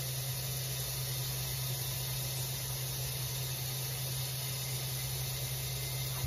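Kitchen faucet running a steady stream of water into a stainless steel pot, filling it with water.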